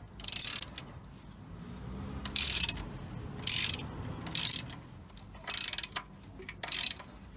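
Hand socket ratchet clicking in six short bursts as its handle is swung back between turns, undoing the water pump bolts.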